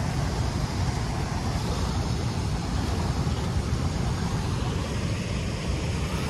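Steady outdoor rushing noise with no distinct tones, heaviest in the low end.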